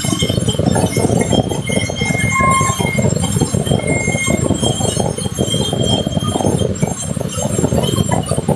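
Sawmill saw cutting through a large teak log: a steady, dense, rasping noise with thin ringing tones that come and go.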